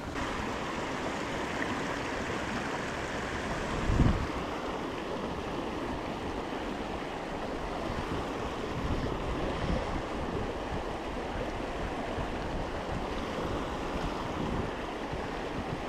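A small stream's water rushing and splashing in a steady wash, with a brief low thump about four seconds in.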